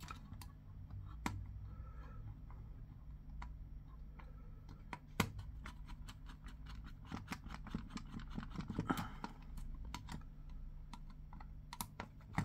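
Small irregular clicks and ticks of a fine screwdriver and small plastic parts being handled as the tiny Torx screws of a wireless body pack transmitter are undone. A steady low hum runs underneath, and the louder clicks come about five and nine seconds in.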